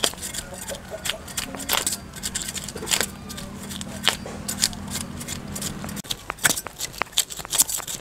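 Broad knife scraping the scales off a raw parrotfish on a cutting board: quick, irregular scratchy rasps and clicks as the scales flake off. A low steady hum sits underneath from about a second and a half in until about six seconds in.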